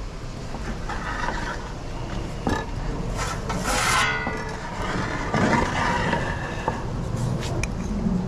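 Wind buffeting the microphone with a steady low rumble, mixed with brief scraping and a few light knocks of kitchen utensils against dishes while pizza sauce is handled.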